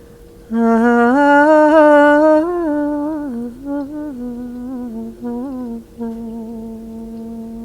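A woman's voice improvising a slow wordless melody a cappella: it opens strongly with a wavering held pitch, steps down through softer notes, and settles on one long held note near the end.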